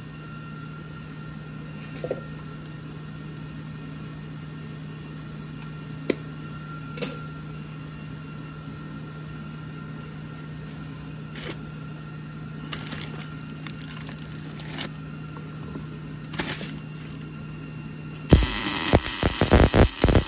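Steady low hum with a faint higher tone and a few scattered light clicks and taps. About two seconds before the end, loud electronic music with a pounding beat starts.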